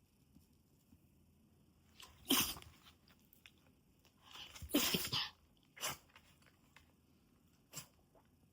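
Mame shiba dog sneezing: a sharp sneeze about two seconds in, a longer one a couple of seconds later, then two shorter, fainter ones.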